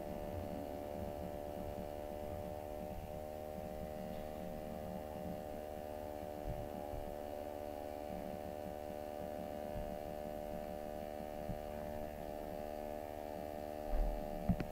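Steady electrical hum in the recording, a stack of even, unchanging tones, with a brief low thump near the end.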